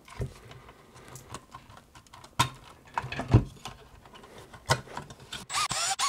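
Small plastic clicks and knocks as wire connectors are worked loose and unplugged from a power-supply circuit board, with one heavier thump a little over halfway through. Near the end a cordless screwdriver's motor whirrs briefly as it starts on the board's mounting screws.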